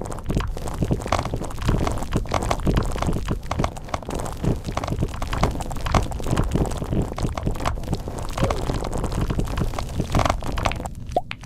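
Fast, continuous typing on a keyboard: a dense stream of overlapping key clicks with a deep thud beneath them, stopping abruptly at the end.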